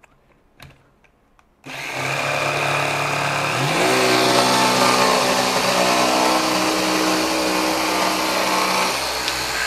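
Festool PSC 420 Carvex 18V brushless cordless jigsaw cutting plywood in auto speed mode, after a few faint handling clicks. It starts about a second and a half in at a lower speed, then steps up in pitch about two seconds later as the auto mode brings it to full speed in the cut, and runs steadily on.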